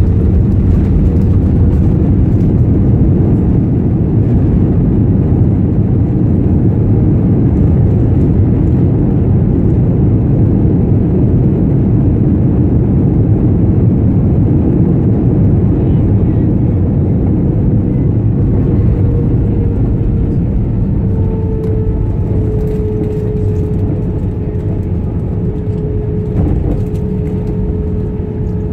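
Cabin noise of an Airbus A320 on its landing roll with the spoilers up: a loud, steady rumble of engines, airflow and wheels on the runway. It eases off a little over the last ten seconds as the jet slows, and a steady hum stands out more clearly then.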